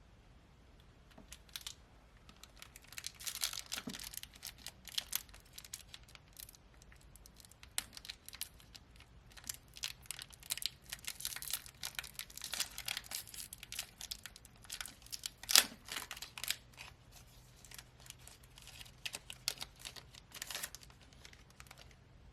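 One Piece Card Game booster pack wrapper being torn open and crinkled: a long run of irregular sharp crackles and rustles, with the loudest snap about fifteen seconds in.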